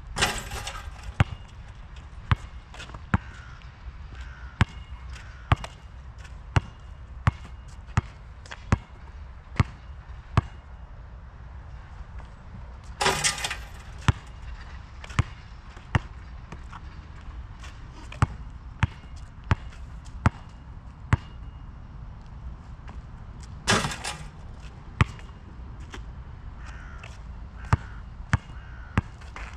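Molten GB3800 basketball bouncing on an asphalt court, single sharp bounces roughly a second apart. Three louder, longer rattling hits stand out, the first as a free throw strikes the hoop.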